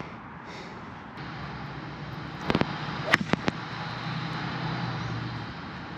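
Golf cart running with a steady low hum that strengthens about a second in, with a few sharp clanks and clicks in the middle.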